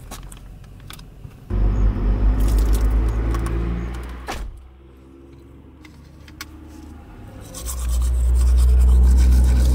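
Low vehicle engine rumble that comes in suddenly about a second and a half in and fades out a few seconds later. It swells again near the end, louder, and then cuts off sharply.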